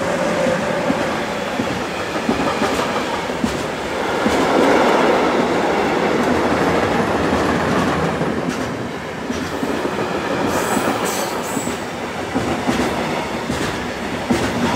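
A train running past close by: a steady rolling rumble with wheels clicking over rail joints and points. A brief high squeal comes about ten seconds in.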